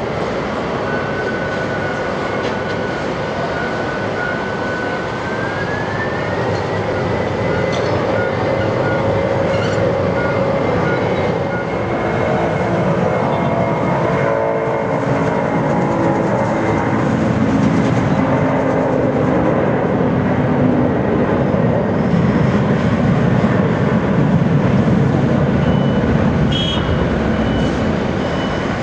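Boeing 747-400D's four turbofan engines on the takeoff roll. A high whine rises in pitch about five seconds in as the engines spool up, then a low roar grows louder as the jet accelerates down the runway and lifts off.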